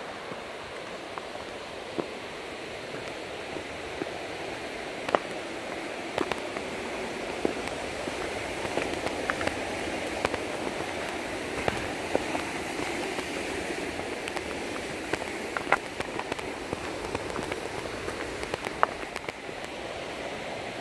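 Sequoia gravel bike's tyres rolling over a rough gravel trail: a steady gritty hiss with scattered sharp clicks and ticks of stones and bike rattle.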